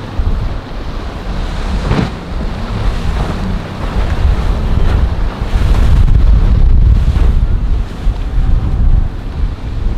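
Wind buffeting the microphone in uneven gusts, over the wash of rough surf breaking.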